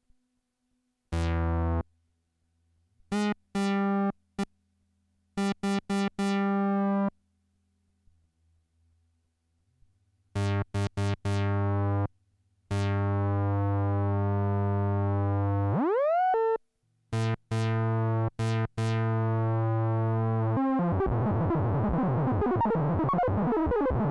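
Korg ARP Odyssey analogue synthesizer, recorded dry from its headphone output, playing short notes and a few held notes with a bright, buzzy tone. About 16 s in the pitch sweeps quickly upward, and from about 21 s the sound turns into a dense, clashing, jangling texture.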